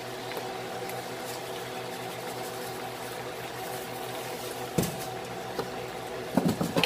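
A wooden spoon stirring mussels in a stainless steel pan, with one knock about five seconds in and a quick run of shell-and-pan clatter near the end, over a steady machine-like hum.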